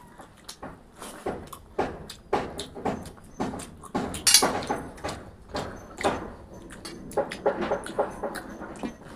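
Close-up eating: irregular crunching and smacking of chewed fried food, one or two sharp crunches a second.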